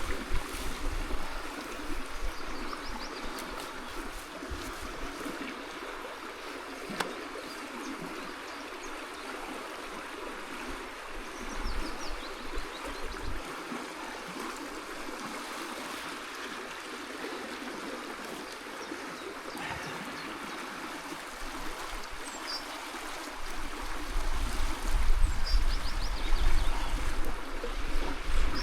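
Stream water running steadily. A low rumble rises near the end, and a few faint high chirps come and go.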